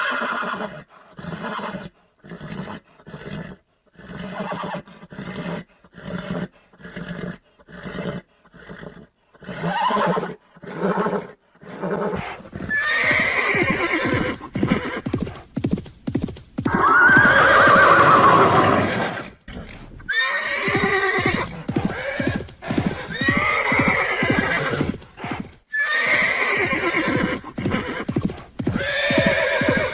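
Horse hooves clip-clopping in a steady, even rhythm for about the first twelve seconds, followed by a string of long horse whinnies, the loudest just past halfway.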